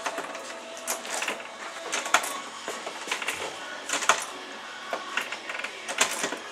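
Heavy punching bag's hanging chain and hook clinking and creaking as the bag swings, in irregular clicks about a second apart.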